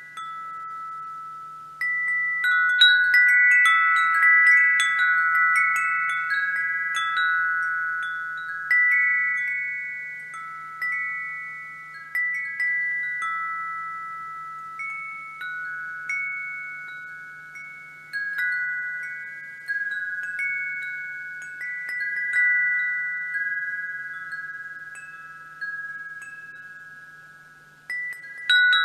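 Wind chimes ringing, struck at uneven intervals so that several clear tones overlap and die away. After a quiet ring-down at the start, a flurry of strikes comes about two seconds in, then single chimes every second or two.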